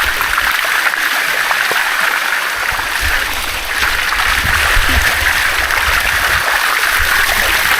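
Water of the Sticky Waterfall rushing and splashing over rock close by, a loud, steady rush. Low rumbles come and go in the middle.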